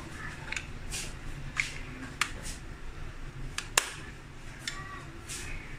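Plastic stick-lids of an ice lolly mould being pressed and snapped shut onto the filled moulds: a handful of sharp plastic clicks, the loudest a little under four seconds in, with softer rubbing between.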